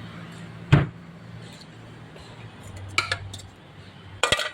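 Cutlery and dishes clinking: one sharp knock about three-quarters of a second in, another clink about three seconds in, and a quick cluster of clinks near the end, over a low steady hum.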